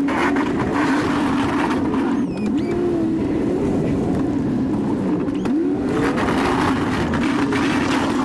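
2019 Chevy 2500 pickup's engine running under load, its pitch sweeping up in short rises about every three seconds, with stretches of rushing noise in between.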